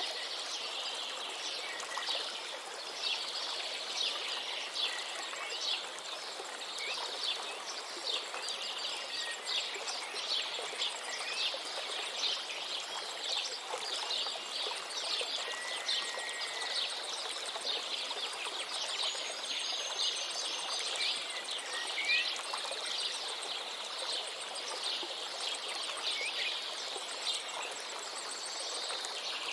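A river flowing steadily under a dense chorus of small birds chirping, with a few clear whistled notes standing out about halfway through and again later.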